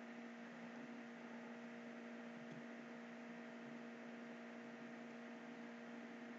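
Faint, steady electrical hum with a light hiss underneath: the background noise of the recording.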